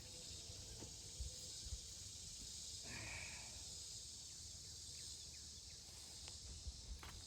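Faint outdoor ambience: a steady high hiss over a low rumble of wind on the microphone, with a brief rustle about three seconds in.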